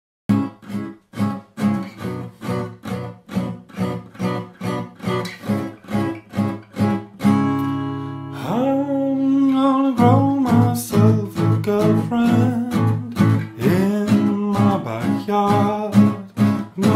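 A song: acoustic guitar strummed in a quick, steady rhythm. The strumming stops on a held chord about seven seconds in, and a singing voice comes in shortly after, over the strumming as it resumes.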